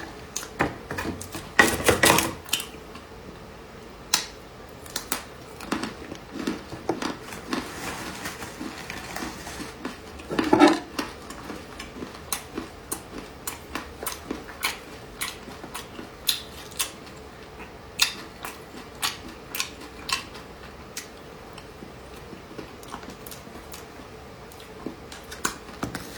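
Dessert being eaten close to the microphone: many small, sharp clicks and taps of a utensil against a dish or container, with louder clatters about two seconds in and again about ten seconds in.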